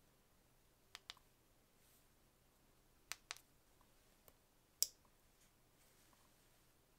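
Sharp clicks and taps from handling a 360 camera. There is a quick double click about a second in, another about three seconds in, and one louder click near five seconds in.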